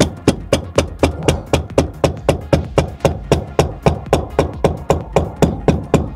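Hammer tapping the top of a car's metal gear-shift shaft through a padding cover to drive it down: a steady run of sharp knocks, about four a second.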